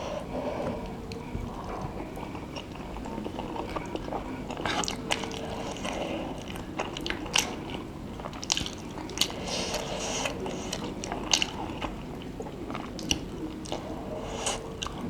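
Close-miked wet chewing of Samyang 3x Spicy instant noodles, with sharp mouth clicks and smacks scattered through.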